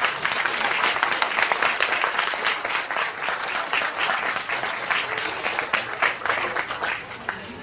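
Audience applauding: many hands clapping in a dense, steady patter that thins out near the end.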